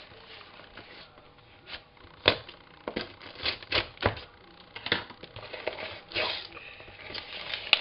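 Hands handling and opening a cardboard parcel: irregular clicks, taps and scrapes, sparse at first and coming thicker from about three seconds in, with a short rustle a little after six seconds.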